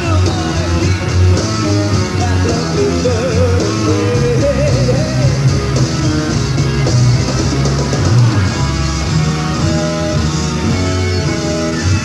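Live hard rock band playing: drum kit, bass and electric guitar under a sung vocal line, with a wavering held note a few seconds in.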